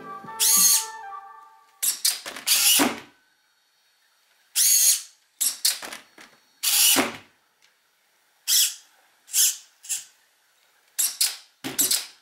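Suspension servos of a Redcat SixtyFour RC lowrider chassis whirring in about a dozen short bursts, working the body up, down and tilting it in place of hydraulic pumps.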